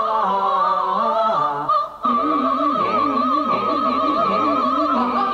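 Commercial soundtrack music of operatic singing: held sung notes that step in pitch, then from about two seconds in one high voice holding a long note with a wide vibrato.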